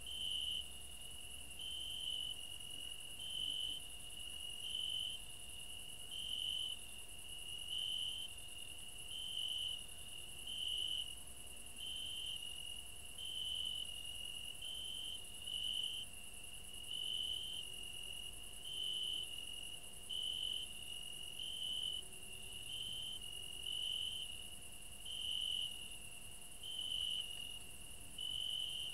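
Crickets chirping: a steady high trill that swells into a louder chirp about once a second, over a constant fainter high hiss of more insects.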